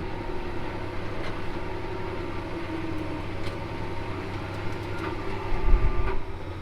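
Tractor engine running steadily, heard from inside the cab of a Versatile 365 pulling a grain cart, with faint ticks and rattles and a brief louder low rumble near the end.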